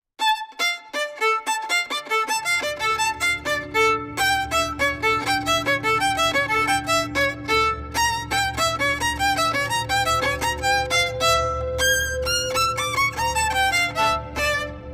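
Background music: a fast melody of quick, short notes, joined about two seconds in by a steady low bass.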